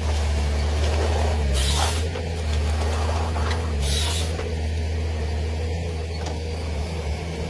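Wood-cutting machine running with a steady low drone, with two short bursts of hissing about two and four seconds in.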